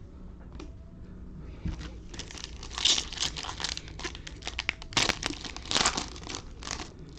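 Trading card pack wrapper being torn open and crinkled by hand: a dense run of sharp crackles begins about two seconds in and tails off near the end.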